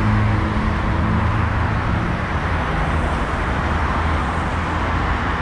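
Street traffic noise: a motor vehicle's engine hum close by for the first couple of seconds, fading into steady road noise.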